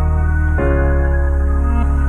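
Background music of slow, sustained chords over a deep bass note, in a calm new-age style, changing chord about half a second in.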